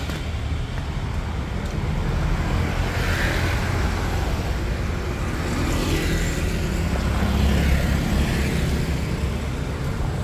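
Road traffic: a steady low rumble of engines with vehicles passing by, swelling about three seconds in and again later on.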